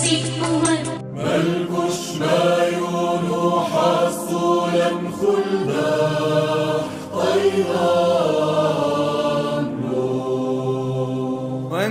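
Maronite liturgical chant, a voice singing a slow melody over a low held drone; it begins about a second in, just as the previous song cuts off.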